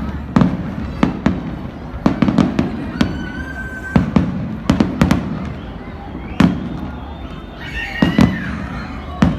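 New Year fireworks display exploding: an irregular run of sharp bangs, about one or two a second, over a steady rumble of distant bursts.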